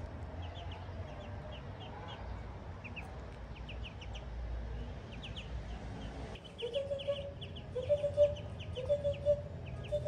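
A group of ducklings peeping, a quick scatter of short high peeps. From about six seconds in, a lower, longer call repeats several times and is the loudest sound.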